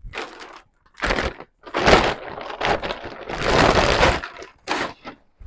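Clear plastic packaging bag crinkling and rustling in irregular bursts as a wrapped hockey goalie blocker is handled and lifted out of its box.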